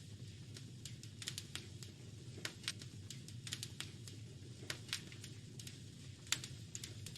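Wood fire crackling: irregular sharp pops and snaps, several a second, over a low steady rumble, with one louder pop about six seconds in.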